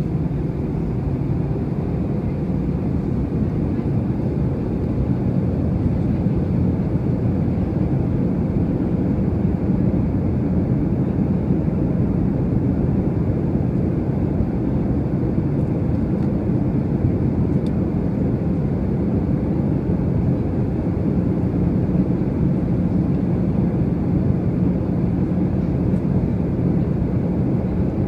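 Steady, low in-cabin drone of an Airbus A319 jet airliner on descent: engine hum and rushing airflow heard from a window seat over the wing, unchanging throughout.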